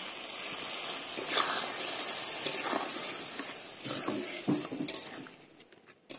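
Spice masala with water just added sizzling and bubbling in an aluminium kadai, while a steel spatula stirs and scrapes the bottom of the pan several times. The sizzling dies down near the end.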